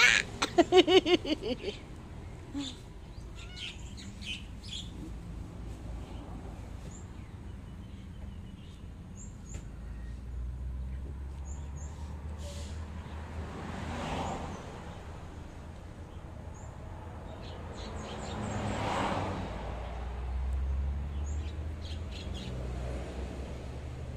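Small birds chirping with short high calls scattered throughout, over the low rumble of passing traffic that swells twice. At the very start there is a louder, rapid chattering series of about eight pulsed calls lasting under two seconds.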